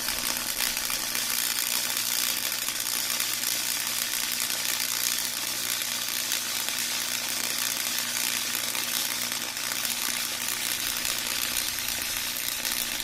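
Harbor Freight Chicago Electric Flux 125 AC flux-core wire welder arc crackling and sizzling steadily through one continuous bead on 1/8-inch wall steel square tubing, run at maximum heat with wire speed 8, with a steady low hum underneath. The arc stops abruptly at the end.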